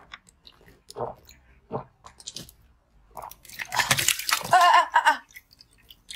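A few short crunching bites on ice frozen in a plastic bottle. Then, from about halfway in, a longer, loud crackle of the bottle's thin plastic as it is squeezed and twisted to push the ice block out.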